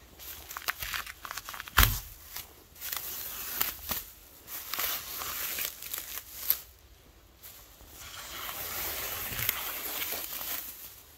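Thin plastic masking sheeting crinkling and rustling in irregular bursts with sharp crackles as it is handled.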